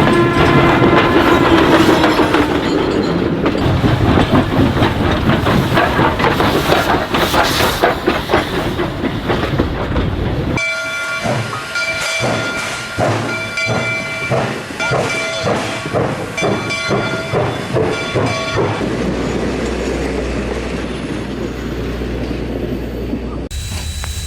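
Train sound effects: a train horn chord trailing off about two seconds in, then the rhythmic clickety-clack of rail wheels over track joints. An abrupt cut about ten seconds in brings a sharper run of wheel clatter with brief ringing tones, which gives way to a low steady rumble near the end.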